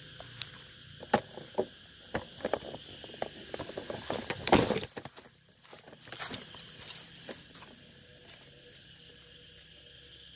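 Irregular rustling and crackling in dry forest undergrowth, a run of sharp snaps over the first seven seconds with the loudest about four and a half seconds in, then quieter. Insects drone steadily underneath in high thin tones.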